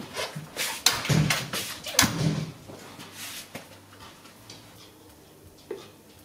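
Footsteps and clothing rustle in a small tiled room: a few soft thumps and knocks over the first few seconds, then quiet room tone.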